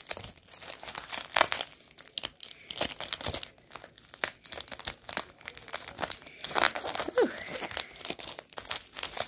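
Bubble wrap and clear plastic wrapping crinkling and crackling irregularly as a small wrapped item is handled and unwrapped.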